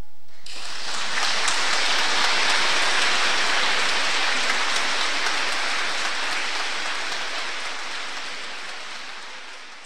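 Audience applauding, starting about half a second in and fading out toward the end.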